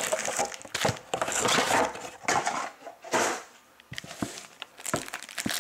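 A cardboard trading-card hobby box being opened and its foil card packs handled, with crinkling and rustling. After a short lull there are a few sharp clicks and knocks near the end.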